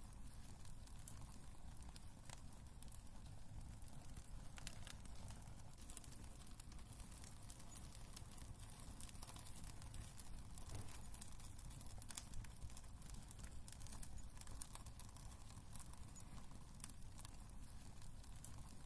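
Wood fire burning in a fireplace: a low steady rumble with frequent irregular sharp crackles and pops from the burning logs.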